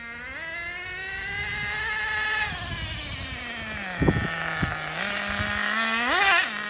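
Traxxas Pro 15 two-stroke nitro engine in an RC truck, freshly broken in. It revs up for about two seconds and gets louder, then drops to a steady idle. Two short knocks come about four seconds in, and a quick throttle blip revs it again near the end.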